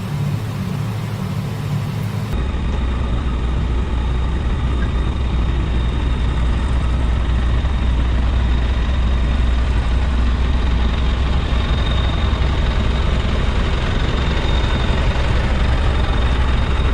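Heavy construction machine's diesel engine running steadily as the machine drives forward, a deep low drone with a thin steady high whine above it. About two seconds in the sound changes abruptly and the low drone becomes much stronger.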